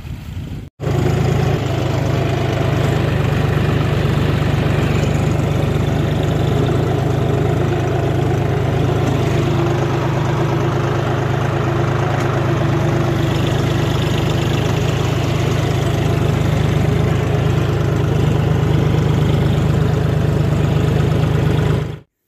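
John Deere 5050D tractor's three-cylinder diesel engine running steadily under load while pulling a plough, heard close from the driver's seat.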